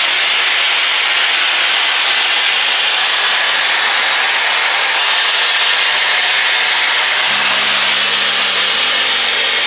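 Shark FlexStyle air styler running with its curling barrel attached: the motor's fan blowing a loud, steady rush of air.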